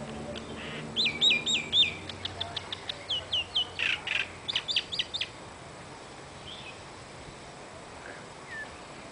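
A songbird singing a quick run of chirps and slurred, hooked whistled notes for about four seconds, starting about a second in, over a faint low hum that fades out in the first few seconds.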